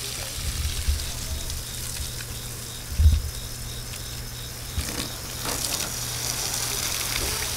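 Water spray from an Irrigreen digital sprinkler head hissing as its streams hit the lawn, growing louder in the last two seconds. A low thump about three seconds in.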